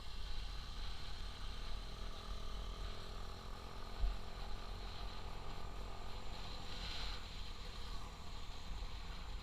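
Motorcycle on the move: steady engine and road noise under a heavy low rumble, with a brief thump about four seconds in.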